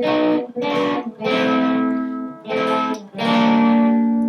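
Electric guitar played through a Yamaha GEP50 multi-effects processor's distortion preset. About five strummed chords are played with short breaks between them, and the last one rings on. The guitar's volume is turned down, which cleans the tone up only a little, and it still has some hairiness.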